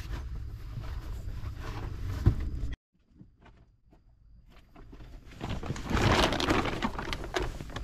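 A steady noisy rumble with one sharp knock just past two seconds in, cut off abruptly. After a near-silent stretch with a few faint clicks, fabric rustling and knocking rise from about the middle as a cloth tote bag packed with bedding is handled and lifted.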